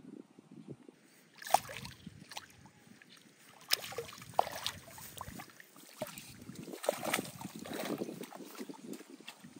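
Water splashing and sloshing in a shallow, weedy pond. There is a sharp splash about a second and a half in, the loudest of them, and more splashes from about four to eight seconds in.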